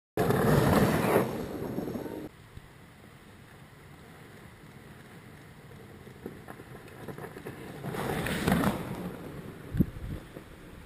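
Fat bikes riding past on a snowy trail: a rush of wide-tyre noise on the snow as a rider goes by in the first two seconds, and another rising and fading as a second rider passes about eight seconds in. A short knock follows near the end.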